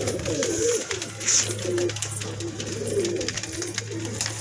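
A flock of domestic highflyer pigeons cooing, many overlapping coos running on together, with a steady low hum underneath.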